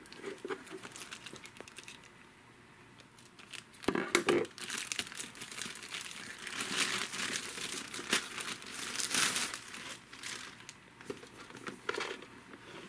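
A thin clear plastic bag crinkling and crackling in irregular bursts as it is worked off a boxed action figure. It is quieter for a moment early on, with the loudest crackling starting about four seconds in.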